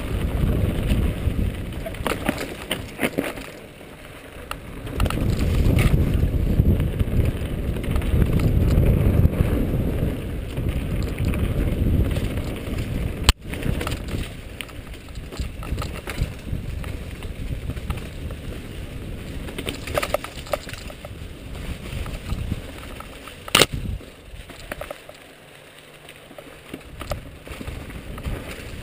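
Mountain bike riding fast down leaf-covered dirt singletrack, heard from a bike-mounted camera: tyre and trail noise with wind rumble on the microphone, heaviest in the first half. Sharp knocks come about 13 and 24 seconds in.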